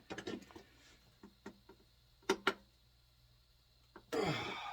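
Scattered sharp metal clicks and clinks of a wrench or socket on the water heater element, which is stuck very tight. Near the end comes a loud, rough burst that drops in pitch.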